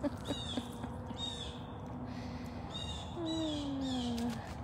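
Wild birds calling: short high chirps repeat about once a second, and from about three seconds in a low hooting call slides down in pitch for about a second.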